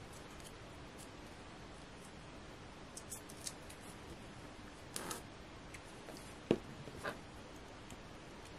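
Scattered light clicks and taps of craft tools and small paper pieces being handled on a cutting mat, with the sharpest tap about six and a half seconds in.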